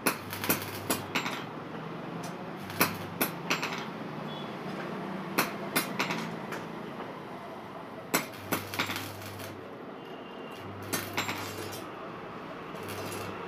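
Sharp metal knocks and clanks from steel fabrication work, coming irregularly in small clusters. A low hum starts and stops several times alongside them.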